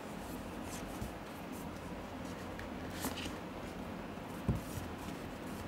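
Hands handling a cardboard headphone box: faint rustling and scraping of the cardboard, with a soft low thump about four and a half seconds in, over a steady low hum.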